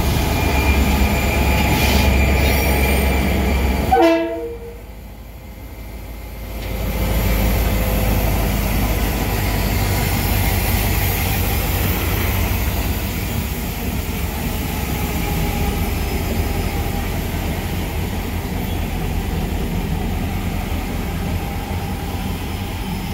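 EMD diesel-electric locomotive engine idling with a steady low rumble. A short horn blast sounds about four seconds in, after which the sound dips for a couple of seconds before the idling rumble returns.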